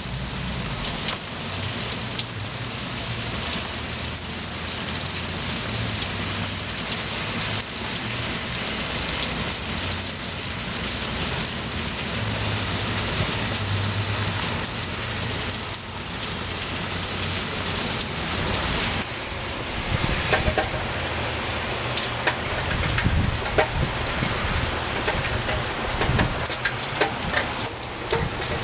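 Steady rain falling and pattering on a surface. About two thirds of the way through the dense hiss thins out, and separate drops and splashes stand out.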